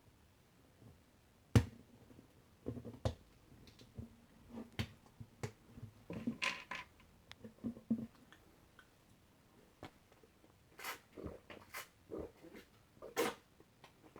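Drink bottles being handled and set down on a table: scattered light clicks and knocks, the sharpest about a second and a half in.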